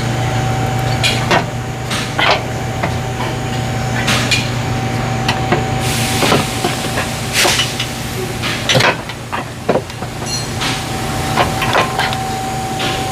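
Metal tools and car parts clanking and knocking in irregular sharp strikes, with a couple of short hissing rushes, over a steady low hum.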